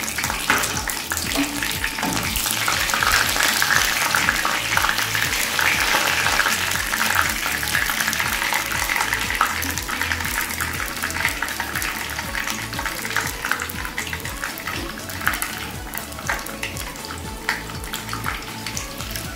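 Whole garam masala spices (bay leaves, cardamom, cinnamon and cloves) sizzling and crackling in hot oil in a kadhai, a dense spitting sizzle that is loudest in the first half and eases off slightly later.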